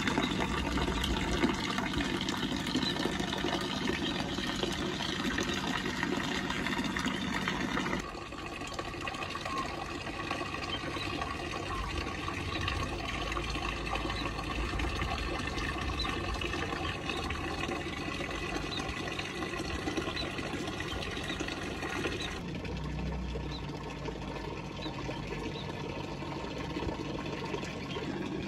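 Water from a small pond fountain splashing and trickling steadily, with a faint steady hum underneath. The sound shifts abruptly about 8 seconds in and again near the end, and faint high chirps come and go after the first shift.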